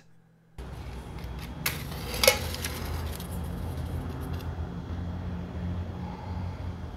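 A wooden match struck, a short sharp scrape and flare about two seconds in, over a steady low hum of outdoor background noise.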